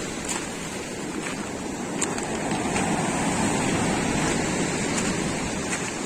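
Black Sea surf washing onto the beach: a steady rush of breaking water that swells a little in the middle.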